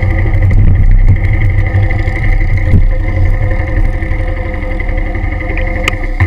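Motorcycle engine running at a steady speed close to the microphone, with a heavy low rumble. Two sharp clicks come near the end.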